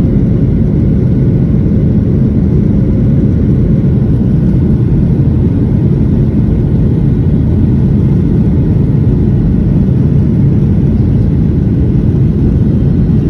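Boeing 737-700 cabin noise shortly after takeoff: the jet engines and the airflow over the fuselage make a loud, steady, deep rumble with a faint hum above it.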